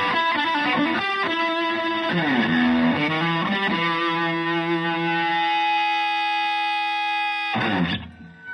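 Stratocaster played through a Rangemaster-style treble booster into a Fender Twin-style amp pushed into breakup: a quick run of notes, a note sliding down in pitch about two seconds in, then a chord left ringing for about four seconds and cut off near the end.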